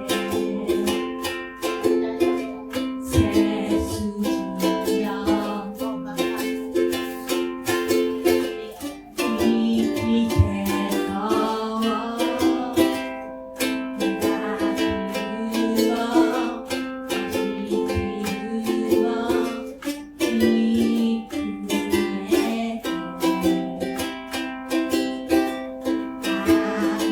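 Ukulele strummed in a steady rhythm, chord after chord, in a small room.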